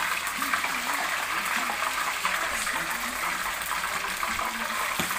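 Pork knuckle deep-frying in a pan of oil: a steady sizzle of bubbling, spattering oil.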